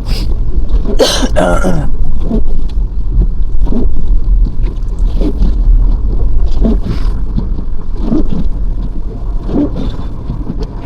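Snowstorm wind buffeting the microphone as a heavy, gusting rumble, with short scrapes or knocks about once a second.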